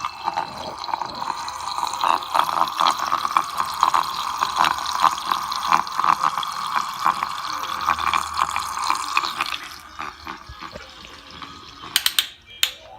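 Water swirling and splashing in a toy tornado maker's vortex, a steady rushing churn that dies down about ten seconds in. A few sharp clicks follow near the end.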